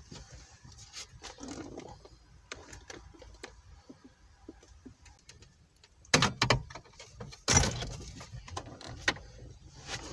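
Metal car radio being worked out of a plastic dashboard opening: scattered light clicks and rattles, then two loud clunks, one about six seconds in and one a second and a half later.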